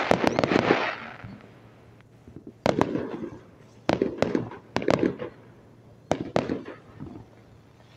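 Aerial fireworks going off: a dense crackle in the first second, then a string of sharp bangs roughly a second apart, each trailing off into a brief crackle, ending on a quieter stretch.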